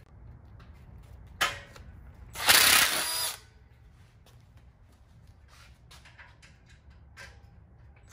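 Cordless impact driver backing a screw out of a steel frame tube: a brief blip about a second and a half in, then a run of about a second that winds down in pitch. Light clicks of handling follow.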